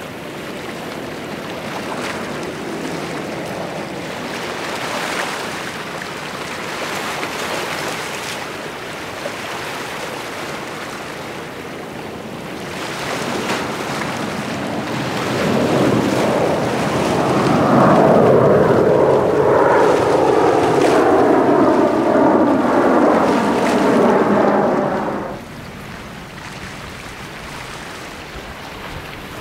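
Jet airliners' engines during take-off and climb-out. A steady distant jet roar swells as a twin-engine jet climbs overhead, with a whoosh that sweeps in pitch, then drops abruptly about 25 seconds in to quieter distant jet noise.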